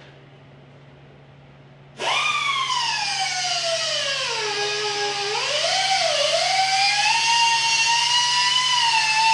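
High-speed power tool such as a grinder starting up suddenly about two seconds in with a loud whine. Its pitch sags as it loads up, wobbles, then climbs back and holds steady.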